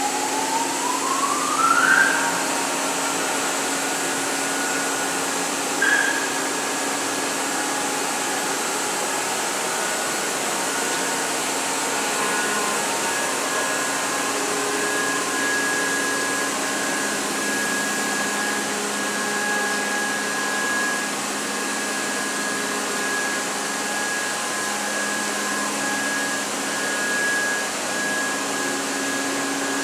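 Matsuura RA1 CNC vertical machining center running with a steady whirring hum. A whine rises in pitch over the first two seconds, and after a click about six seconds in a steady high whine holds over the hum.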